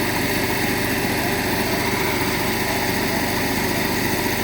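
An engine running steadily at an even pitch, with no change in speed.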